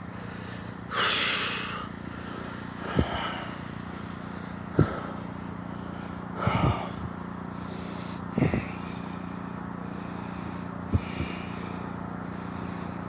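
A loud breathy snort or exhale close to the microphone about a second in, then five short, sharp knocks spread out over a steady low hum.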